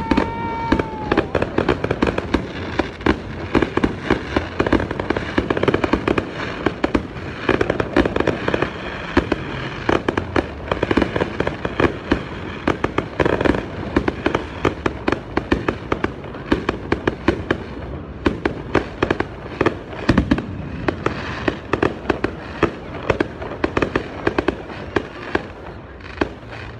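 Aerial fireworks going off in a dense, continuous barrage of bangs and crackles, several a second, easing off slightly near the end.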